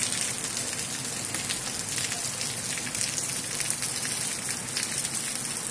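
Steady rain falling on standing floodwater: a dense, even hiss of many drops.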